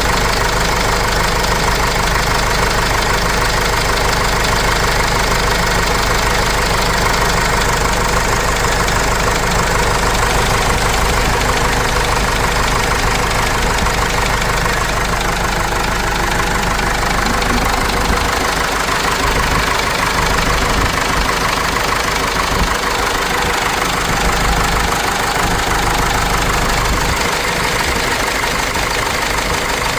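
Cummins 4BT four-cylinder turbo diesel in a Case 586E forklift running steadily, after an engine teardown and a new oil pickup tube fitted to cure a knocking sound.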